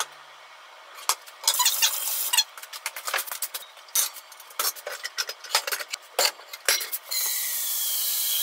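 Cookware being handled on a kitchen counter and gas hob: a scrape and scattered knocks and clicks as a frying pan is set down and a saucepan is lifted off. Then, from about seven seconds in, tap water runs steadily into the saucepan to fill it for boiling.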